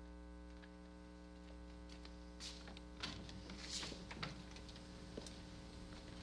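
A steady electrical mains hum with many overtones, quiet throughout. Faint rustles and light knocks come from about the middle on.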